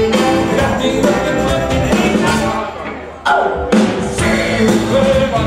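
Live jazz-soul band playing: saxophone, electric guitar, bass guitar and drum kit. A little before three seconds in the music drops back briefly, then the full band comes back in suddenly and loud.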